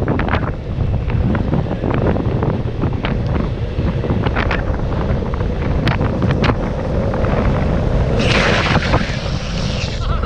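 Longboard wheels rolling on asphalt under heavy wind buffeting on the microphone, with scattered clicks from the road surface. About eight seconds in, a two-second hissing screech as the rider does a hand-down slide, the urethane wheels sliding sideways across the asphalt, cut off sharply at the end.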